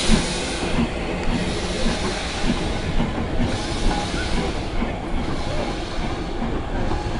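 Tank steam locomotive LNER No. 985 moving off with a wooden carriage. Its steam hisses in surges about every two seconds over the rumble and clicking of wheels on rail.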